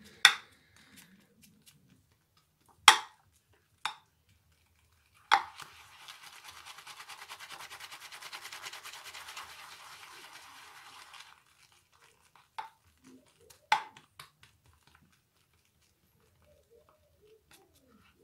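Shaving brush whisking soap lather in a lathering bowl: a rapid, wet scratching run of quick strokes lasting about six seconds in the middle. A few sharp clicks come before and after it, the loudest sounds here.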